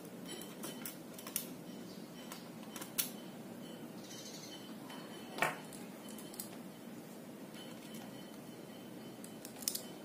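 Scattered small clicks and taps of hard plastic and circuit board being handled during laptop disassembly, a few seconds apart, the loudest about five and a half seconds in, over faint room tone.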